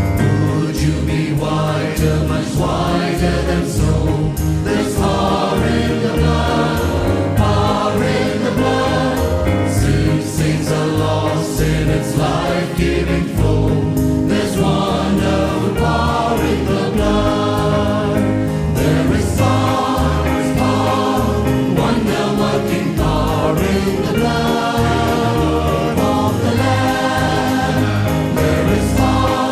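A choir singing a gospel song in full harmony, continuous and steady in loudness, over a rhythmic bass line.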